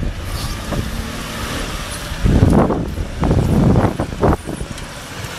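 Toyota Land Cruiser off-roader's engine running under load as it crawls through mud. Two loud, rough surges come about two seconds in and again about a second later.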